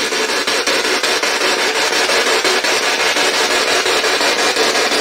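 A spirit box, a radio sweeping rapidly through stations, giving a continuous loud hiss of static. Regular clicks break the hiss several times a second as it jumps from channel to channel.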